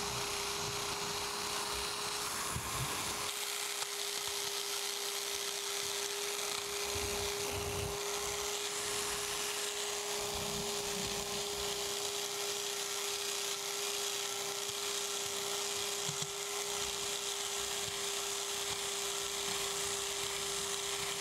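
BiAx electric power scraper running with a steady hum, its reciprocating blade cutting into the cast iron way of a boring mill saddle. This is step scraping, taking metal down in stages to bring the saddle ways coplanar.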